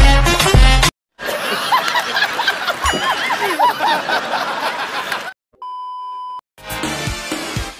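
Several people laughing hard for about four seconds, edited in as reaction laughter. It is followed by a steady test-tone beep about a second long, the tone that goes with TV colour bars. Music with a strong beat is heard briefly at the start and again near the end.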